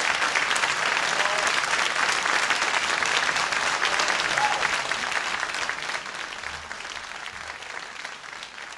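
Crowd applause: many people clapping together in a dense patter, which begins to die away about six seconds in and keeps fading to the end.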